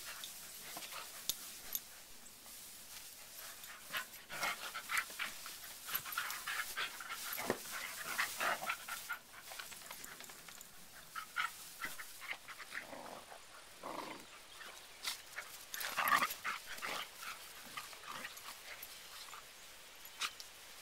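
Shepherd/catahoula mix puppies play-fighting, with short growls, panting and yips in irregular bursts, over rustling in loose hay.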